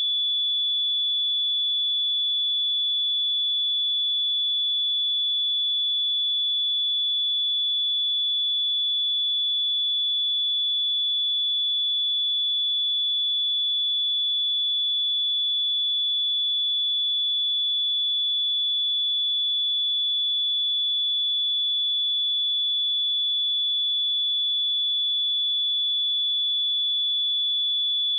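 A steady 3445 Hz sine-wave test tone, a single pure high-pitched whistle-like tone held at constant pitch and level, used for testing speakers and headphones.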